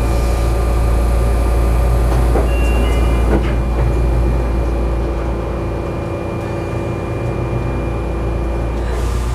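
Sotetsu 9000 series train's sliding doors closing, with a short high chime and a thud about three seconds in. Under it runs the steady hum of the standing train car's equipment.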